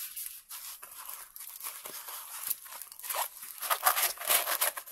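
Plastic-covered diamond painting canvas rustling and crinkling as it is rolled up by hand, a run of irregular scratchy rustles that get louder about three seconds in.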